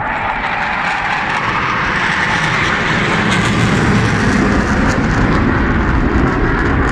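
Aircraft making a low pass overhead: a loud rushing engine noise that builds over the first few seconds, then holds with a deepening rumble.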